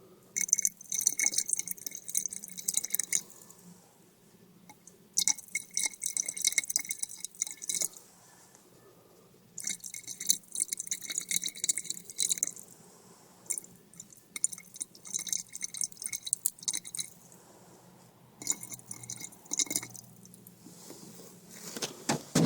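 Distilled water trickling into the cells of a lead-acid car battery, topping up the electrolyte to cover the plates. It comes in five separate pours of two to three seconds each, with short pauses between.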